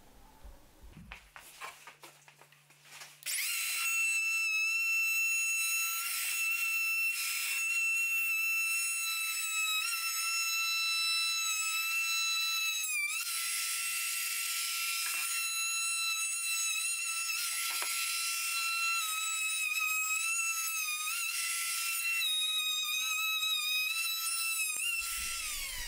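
Compact trim router switched on about three seconds in, running with a steady high whine as its bearing-guided rebating bit cuts a rebate in pine, the pitch dipping briefly under load. Near the end it is switched off and winds down with a falling whine.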